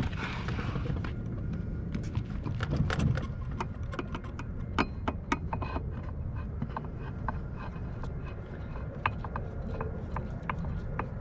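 Scattered sharp clicks and knocks of hands working at a john boat's bench seat, over a steady low rumble.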